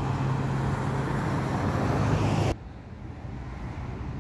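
Street traffic: a vehicle's engine and tyre noise, loud for the first two and a half seconds, then cut off abruptly to quieter traffic noise.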